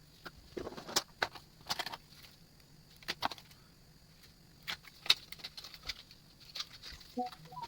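Irregular clicks and light taps of small hard plastic and metal parts being handled on a laptop, a dozen or so sharp knocks spread unevenly, over a faint steady hum.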